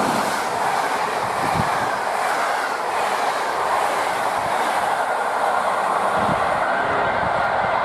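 Intercity passenger coaches rolling past at speed: a steady rush of wheels on the rails with a couple of dull low thuds. The high hiss thins near the end as the train draws away.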